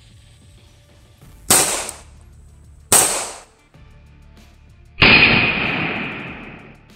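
Grand Power K100 pistol shots: two sharp bangs about a second and a half apart, each with a short fading echo, then a third, duller bang about two seconds later that fades slowly over nearly two seconds.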